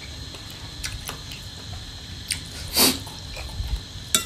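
A person chewing a mouthful of boiled frog with mouth closed: soft mouth clicks and one louder wet mouth sound about three seconds in.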